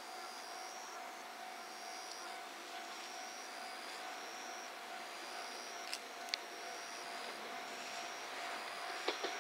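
Japanese level crossing warning alarm sounding with a steady ringing tone as a JR Shikoku 1500/1200 series diesel railcar approaches, the train's running noise growing louder toward the end. A few sharp clicks are heard about six and nine seconds in.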